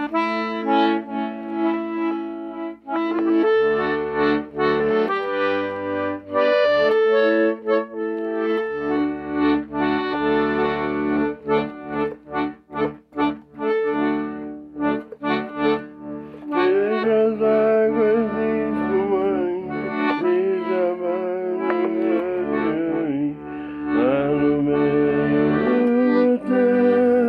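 Accordion playing a melody over sustained chords, with a run of quick short notes in the middle.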